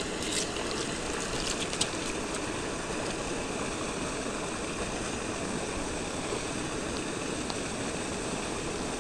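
Steady rush of flowing river water, with a few light clicks in the first couple of seconds.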